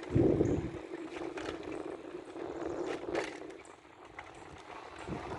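E-bike with a Motorino 500 W rear hub motor under way: a steady motor hum with tyre and wind rush, the rush loudest in the first second, and a few light clicks and rattles from the bike.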